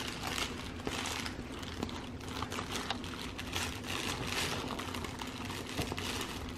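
Crinkly plush Dunkin' munchkin-box dog toy rustling and crackling as a golden retriever puppy roots inside it with his head: a continuous run of small crinkles and clicks.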